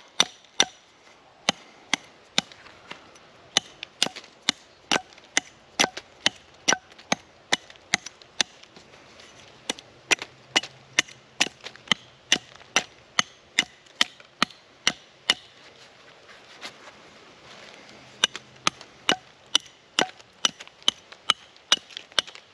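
Small hatchet chopping repeatedly into a hard persimmon branch: sharp wooden chops about two a second, with a pause of a couple of seconds a little past the middle.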